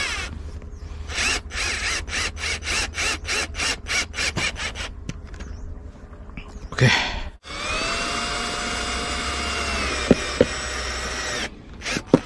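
Electric drill driving a stubborn screw: a run of short bursts of the motor, a louder burst about seven seconds in, then the motor running steadily with a whine for about four seconds, with two sharp clicks near the end.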